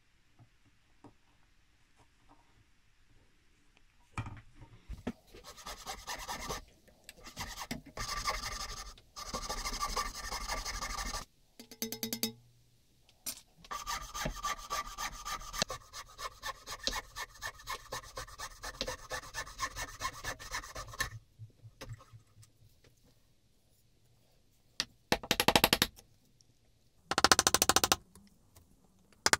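A fine-bladed piercing saw cutting into a boxwood block in quick, even strokes, in two long runs. Near the end come two louder short bursts as a chisel is worked into the sawn cut.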